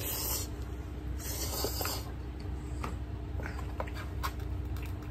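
A person slurping food off chopsticks, two hissy slurps in the first two seconds, then chewing with small wet mouth clicks.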